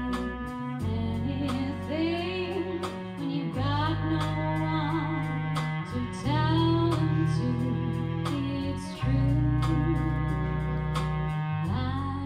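Live band playing: a woman singing over bass guitar, drum kit, electric guitar and violin. Long, low bass notes change every two to three seconds under a steady drum beat, with sliding melody lines above.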